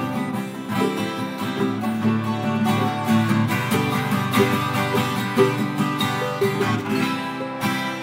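Ukulele and twelve-string acoustic guitar strumming chords together in a steady, lively rhythm, played live without singing.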